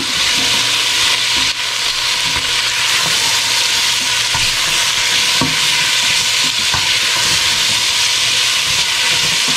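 Squash cubes, onions and garlic sizzling in hot oil in a stainless steel pan, stirred with a silicone spatula. A steady frying hiss runs throughout, with occasional light scrapes and taps of the spatula against the pan.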